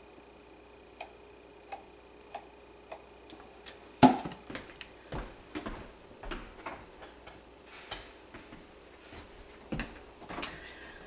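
Kitchen containers and utensils being handled on a countertop: a few light taps, then a sharp knock about four seconds in, followed by scattered clinks and clatter.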